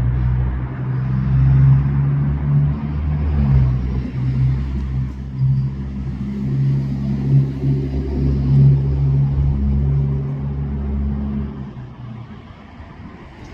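Hummingbird's wings humming close by, a loud low buzz that wavers in strength as the bird hovers and shifts, fading about twelve seconds in.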